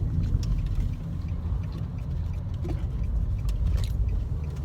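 Car cabin noise while driving: a steady low rumble of engine and road, with a few faint light ticks.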